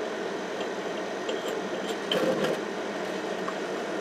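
Household vacuum cleaner motor running steadily, pulling vacuum through the hose on a hot investment-casting flask. A short scrape comes about two seconds in.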